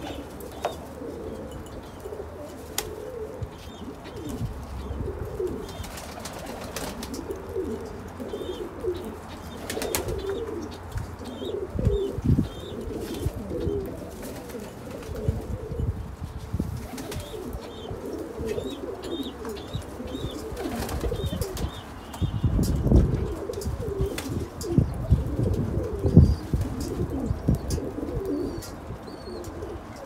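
A flock of Pakistani flying pigeons cooing continually, with occasional wing flaps. Faint high chirping of small birds runs in the background.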